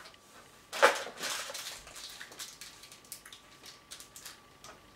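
Plastic snack wrapper crinkling as it is handled and opened: a loud crackle about a second in, then scattered smaller crinkles and clicks that die away near the end.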